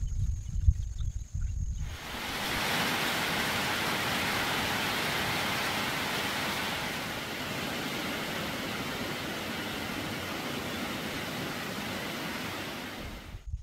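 Heavy rain falling steadily on trees and broad banana leaves, an even dense hiss that begins abruptly about two seconds in, after a low rumble.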